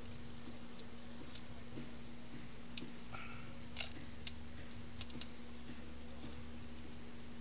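Scattered small clicks and ticks of a speargun's trigger mechanism, its metal sear and plastic trigger parts being handled and fitted by hand, with the sharpest click a little past four seconds in. A steady low hum runs underneath.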